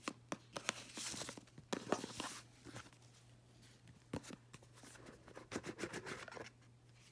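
Fabric ribbon rustling as it is untied and pulled off a cardboard gift box, with light taps and scrapes as the box is picked up and handled. The sounds are faint and come in short clusters.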